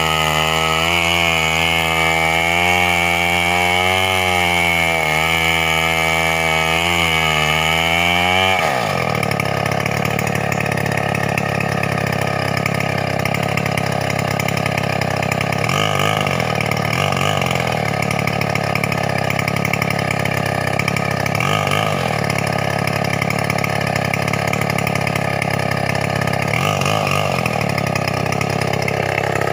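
Two-stroke chainsaw at full throttle ripping lengthwise through a medang log, its pitch wavering under load. About eight seconds in the throttle is released and the engine drops to a lower idle, with a few brief revs later on.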